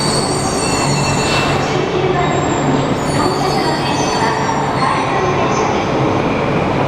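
Double-decker Shinkansen bullet train moving at the station platform: a steady rumble with thin, high squealing tones over it.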